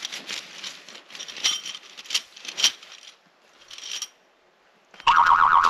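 Metal tent stakes clinking and rattling as they are handled, with a few sharp ringing clinks. Near the end a short, much louder burst of noise cuts in.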